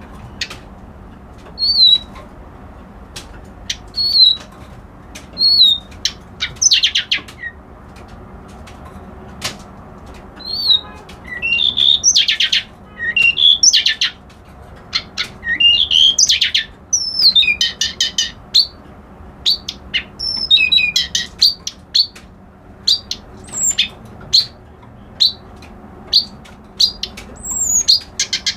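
Kerak basi alis putih, a white-browed reed warbler, singing. A few short separate chirps give way to bursts of fast, harsh chattering phrases with short pauses between them.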